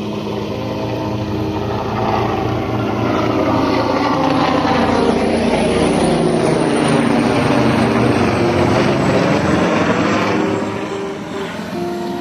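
An aircraft flying overhead. Its engine sound swells to a peak in the middle and fades near the end, with a sweeping whoosh as it passes.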